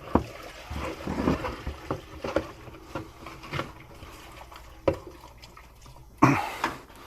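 Water mixed with stale fuel dribbling out of a lawn mower carburetor into a catch container, with small clicks and knocks of handling, and a short louder rush of noise about six seconds in.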